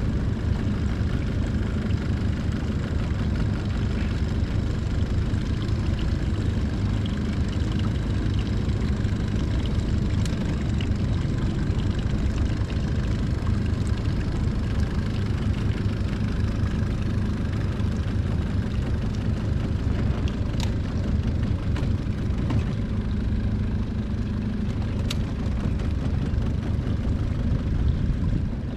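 Small boat's outboard motor running steadily at low speed, a constant low hum.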